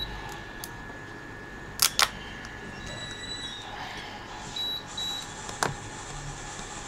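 Metal tweezers clicking against the plastic casing of an iPhone wall charger as it is pried open. There are two sharp clicks close together about two seconds in, and a weaker one later.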